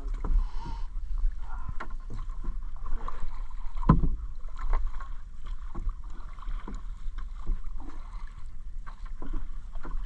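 Gill net being hauled by hand over the side of a small outrigger canoe: water splashing and dripping off the mesh, with many small knocks and clicks as it lands in the hull. A steady low rumble runs underneath, and one louder knock comes about four seconds in.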